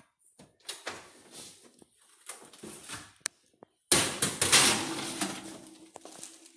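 A metal roasting pan sliding onto the wire rack of an open oven: a sudden loud scraping clatter about four seconds in, after quieter handling noises and a click.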